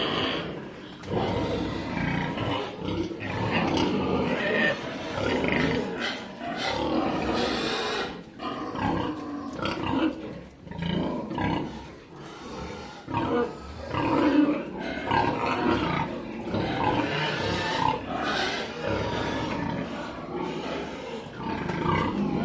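A group of piglets squealing and grunting almost without pause, many high calls overlapping.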